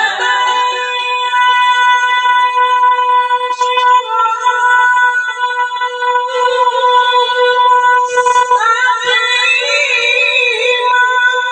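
A Quran reciter's voice holding one long, high note on a drawn-out vowel. About two thirds of the way in, the note breaks into a wavering, ornamented melisma.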